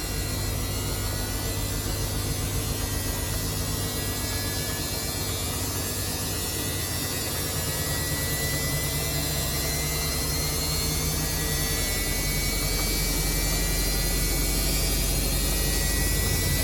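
Samsung washing machine motor running with a steady hum and a faint whine that climb slowly in pitch and level as the drum speeds up.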